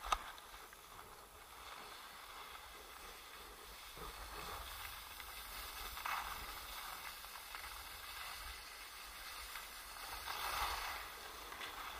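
Skis hissing and scraping over packed snow during a run, the hiss swelling a few times, with wind rumbling on the microphone. A single sharp click right at the start.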